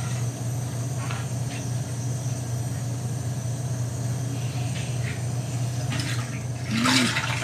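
Steady low hum of the fishing boat's machinery, with faint splashing, dripping and a few light knocks as a prawn pot is winched up out of the water on a line and reaches the rail.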